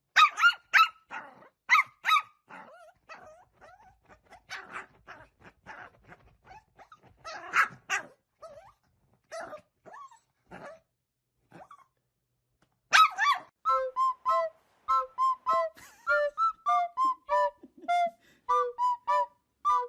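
A dog barking and yipping in short, irregular bursts, followed about two-thirds of the way in by light background music of short, evenly paced plucked notes.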